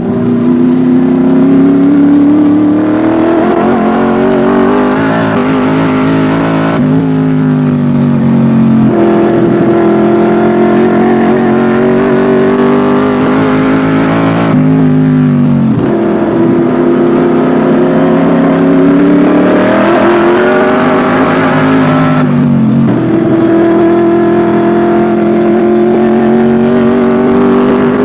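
Racing car's Chevrolet V8 engine at full throttle. The engine note climbs and drops sharply several times as it shifts gear, and twice falls away in a long downward slide, as when lifting off and braking for a corner.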